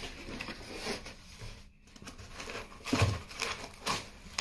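Cardboard box being opened and the packaging handled: rustling and scraping of cardboard, with a couple of soft knocks about three and four seconds in.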